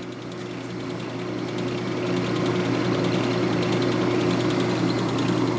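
Ammco 4000 brake lathe running with its slow feed engaged: a steady hum from the electric motor and gear drive. It grows a little louder over the first two seconds, then holds steady.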